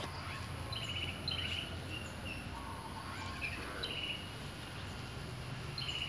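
Garden ambience: small birds giving short chirps, repeated every second or so, over a steady high-pitched insect drone and a low rumble.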